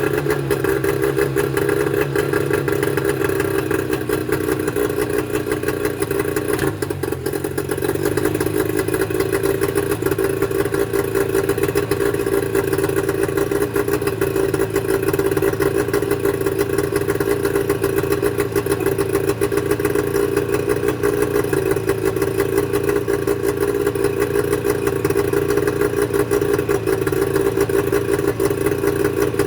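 Mercury 25 hp two-stroke outboard motor running steadily at a constant speed, with a fast, even pulsing.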